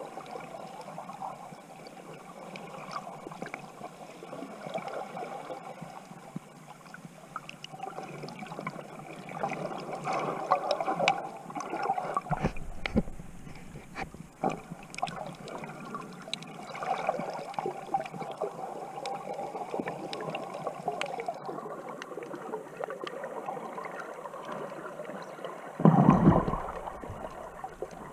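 Underwater water noise around a snorkeler's submerged camera: a steady gurgling wash with scattered sharp clicks, a deeper rumble midway, and a loud burst of rushing water near the end.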